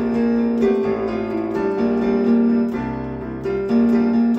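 Electronic keyboard played with both hands: an instrumental passage of held, piano-like chords over sustained low bass notes, the chord changing every second or so.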